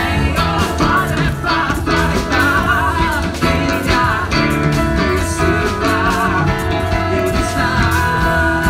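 Live rock band playing through a stage PA: a male singer with vibrato over electric guitar and drums.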